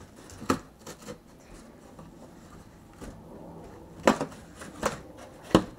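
A few short, sharp knocks and clacks, spread across the few seconds, with faint rustling between them.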